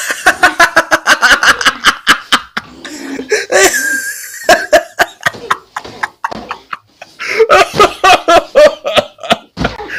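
A teenage boy laughing hard in rapid bursts, in several fits with short breaks between them.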